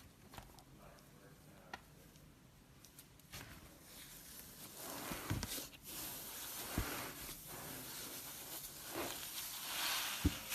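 Hands squishing and pressing slime, making soft sticky crackles. Faint at first and louder from about halfway, with a few soft low pops.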